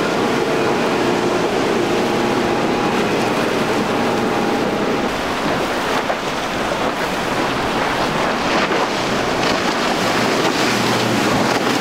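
Outboard engines of center-console boats running at speed, mixed with water spray and waves and wind rushing over the microphone. A steady engine hum is clearest in the first few seconds, after which water and wind noise dominate.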